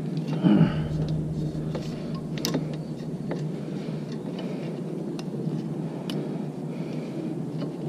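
Scattered light clicks and taps of a motorcycle clutch cable and the bike's metal parts being handled as the cable is threaded through the frame, over a steady low hum. A short, louder sound comes about half a second in.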